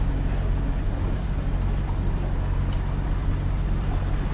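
A motorboat's engine running at a steady low hum as the boat moves across calm water. Wind and water noise run under it.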